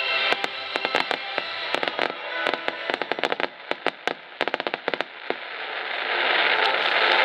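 Starmine fireworks bursting: a rapid, irregular string of sharp pops and crackles, with a hiss that swells louder near the end.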